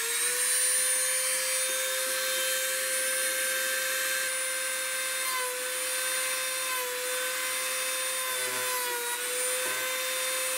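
Dremel rotary tool with a sanding attachment running at full speed on the plastic case of a Commodore disk drive: a steady high whine over a hiss, just finishing its spin-up at the start and dipping slightly in pitch now and then as the sander bears on the plastic.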